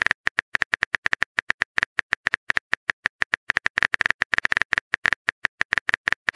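Phone on-screen keyboard typing sound effect: a rapid, uneven run of short clicks, about eight a second, one per letter typed.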